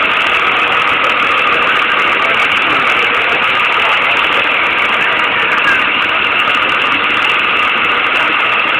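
Yellow school bus engine idling close by: a steady, unbroken drone.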